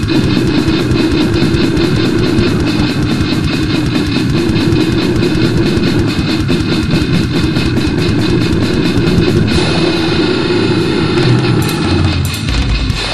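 Goregrind metal song: heavily distorted guitars over fast, rapid-fire drumming. The texture changes about nine and a half seconds in and again near the end.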